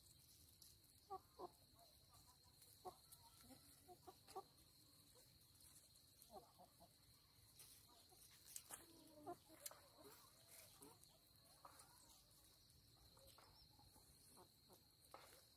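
Faint, scattered clucking of domestic chickens, with a few soft clicks in between.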